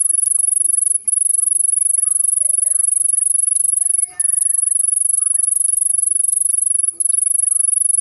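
Male cricket stridulating with its wings raised: a loud, high-pitched continuous trill, broken three times by brief pauses roughly every three seconds.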